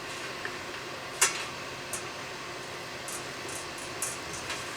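A metal tool stirring molten solder and bismuth in a small pot: a sharp metallic tap about a second in, then a few light ticks, over a steady low hiss.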